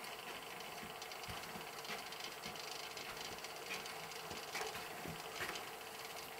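Servo drive of a model railway level crossing running as it slowly lowers the barrier booms: a faint steady hum with a few soft clicks.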